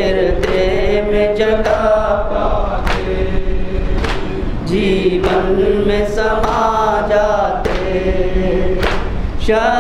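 Male voices chanting a Muharram nauha (a mourning lament) in a slow, held melody, with several voices together, punctuated by sharp beats.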